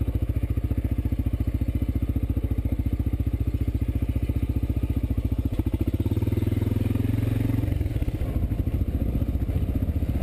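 Honda XR650L's single-cylinder four-stroke engine running under way at low speed, its exhaust pulses evenly spaced. About six seconds in it picks up revs as the throttle opens and the pulses come faster and stronger.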